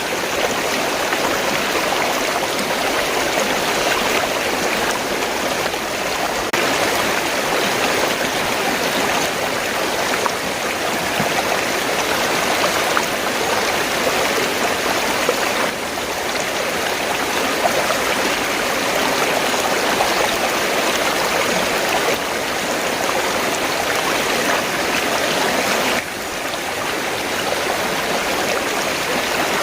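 River water rushing and burbling steadily. Its texture changes abruptly three times.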